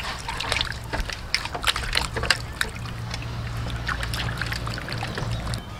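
Water sloshing and splashing in a metal basin as hands scrub a raw oxtail, with many irregular wet splashes.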